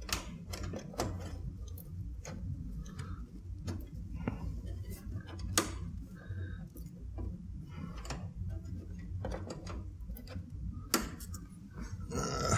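Irregular light clicks and knocks of a graphics card and metal case parts being handled, with a sharper click about halfway through and another near the end, over a low steady hum.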